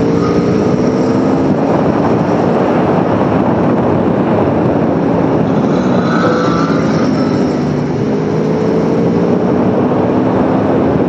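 Aprilia Tuono V4 1100 motorcycle's V4 engine running at road speed under a steady rush of wind noise. The engine note climbs gently about halfway through as it accelerates.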